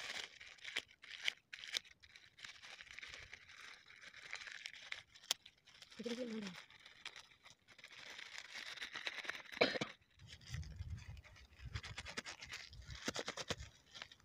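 Paper powder packets rustling and crinkling as coloured gulal powder is shaken out of them into a plastic tub, with scattered clicks of handling. A brief pitched sound comes about six seconds in, and there is low rumbling in the last few seconds.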